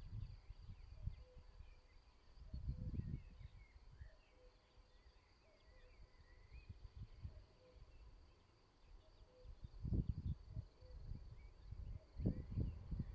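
Wind gusting on the microphone in irregular low rumbles, strongest about three seconds in and again near the end. Behind it, faint bird chirps, a low bird note repeated about once a second, and a thin steady high insect drone.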